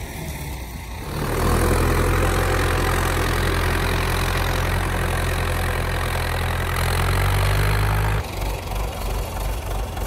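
Farm tractor's engine running steadily as it pulls a disc plough through the soil. It gets louder about a second in and drops back near the end.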